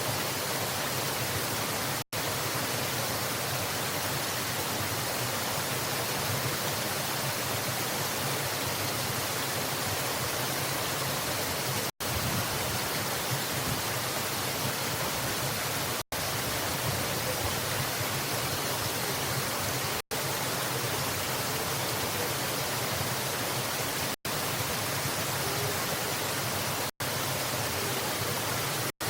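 Steady rushing of a waterfall's falling water. It cuts to silence for an instant about two seconds in and several more times after.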